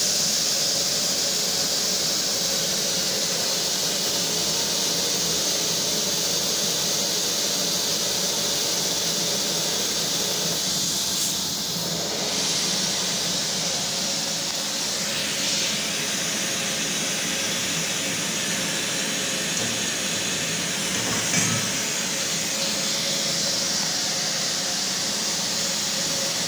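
Steady, loud hiss of rushing air from a plasma CNC cutting rig with the cutting arc off.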